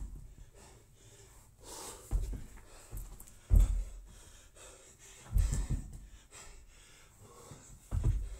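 Heavy breathing from an athlete doing bar-facing burpees, with several thuds of the body dropping to a rubber gym floor and feet landing from jumps over a barbell. The loudest thud comes about three and a half seconds in.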